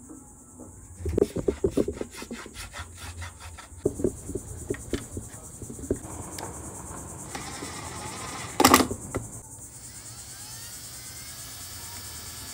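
A wooden batten rubbing and knocking against the planked wooden transom. About a second in there is a quick run of rubbing strokes, roughly seven a second, lasting a couple of seconds; a few scattered knocks follow, then one short loud scrape about nine seconds in. A steady high insect drone runs underneath.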